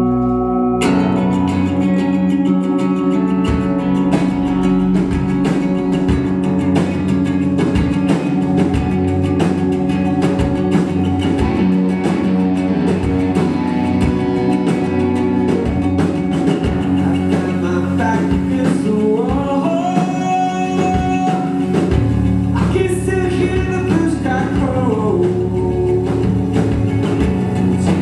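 Live rock band playing: over a held chord, the full band with drum kit and electric guitars comes in about a second in and plays on steadily.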